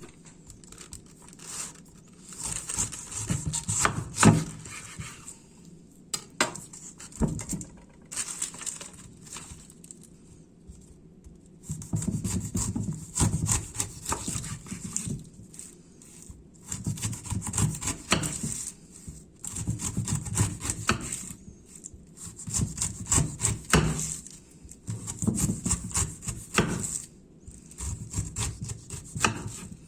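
Knife sawing back and forth through food on a wooden cutting board, in runs of quick scraping strokes with short pauses between them.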